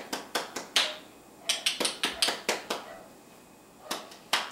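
Quick, light hand claps in three short runs, several claps a second, to call a puppy over.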